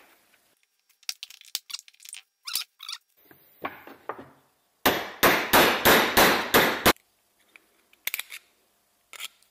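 Metal parts and hand tools clicking and clinking on a workbench while an angle grinder's gearhead and bearing are being reassembled. About halfway through comes a quick run of sharp metal knocks, about three a second for two seconds, then a couple of light clicks.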